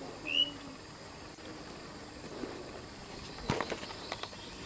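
Outdoor ambience with a steady high hiss; a single short rising chirp sounds near the start, and a cluster of sharp clicks and knocks comes about three and a half seconds in.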